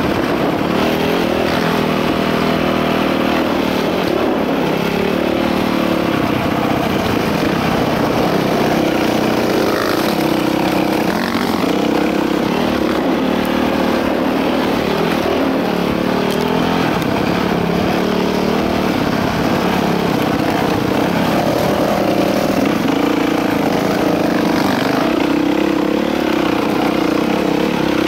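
Dirt bike engine running under load on a trail ride, its pitch rising and falling with the throttle.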